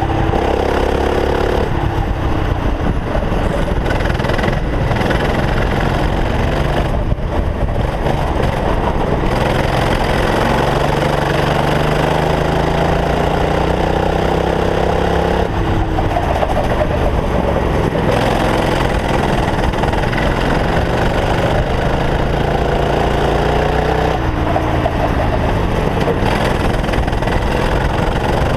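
Racing kart engine heard onboard at speed, its pitch climbing slowly as it accelerates down the straights and dropping sharply when the throttle is lifted for corners, about three times.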